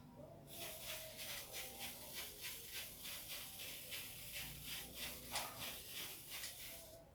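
Rhythmic scratchy rubbing strokes of a tool working paint onto a wall, about two or three strokes a second.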